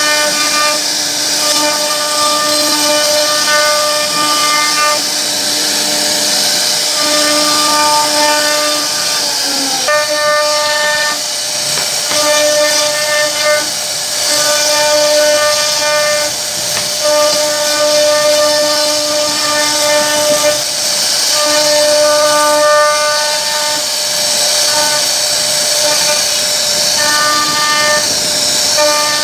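CNC router spindle cutting wood: a steady high-pitched whine over a hiss from the bit chipping through the timber. The upper tones of the whine fade and return every few seconds as the bit works through the carving.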